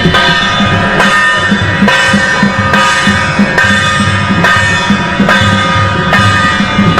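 Music with a steady drum beat, a stroke a little under a second apart, under held instrumental notes.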